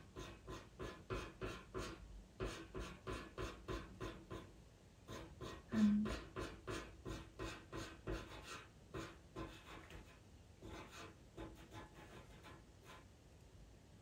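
Pastel pencil scratching on pastel mat paper in quick short strokes, about three or four a second, laying in fur. The strokes grow fainter near the end.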